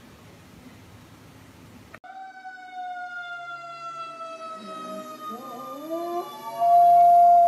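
Quiet room tone, then from about two seconds in a fire truck siren wails in a slow falling tone. A dog howls along, its howl rising in pitch, and the sound turns much louder with a held note near the end.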